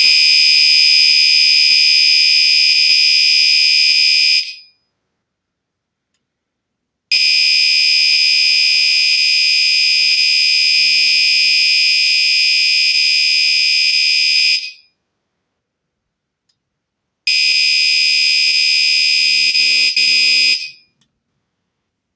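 Fire alarm sounding a loud, steady, high-pitched electronic tone. It cuts off about four and a half seconds in, comes back at about seven seconds for some seven and a half seconds, then stops and sounds again for about three and a half seconds.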